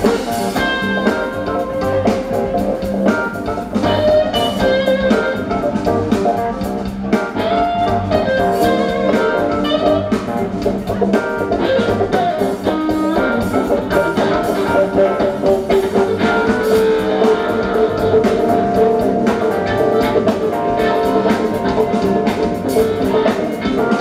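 Rock band playing live: electric guitars, keyboard, bass and drum kit in a steady groove, heard from the crowd.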